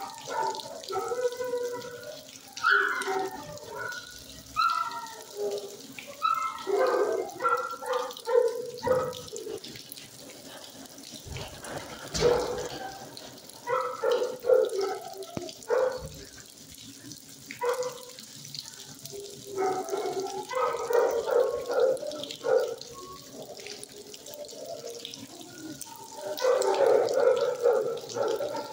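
Dogs barking and howling in a shelter kennel room, with irregular echoing bursts over a steady hiss.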